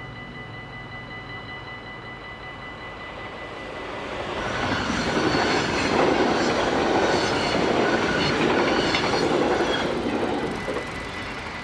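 A train passing over a Dutch level crossing. The rumble of its wheels on the rails swells about four seconds in, stays loud for around six seconds, then fades near the end. Throughout, the crossing's warning bells ring as a steady high tone.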